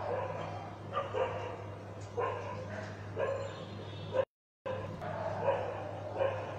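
Short pitched yelping calls from an animal, repeated about once a second, over a steady low hum. The sound cuts out completely for a moment about four seconds in.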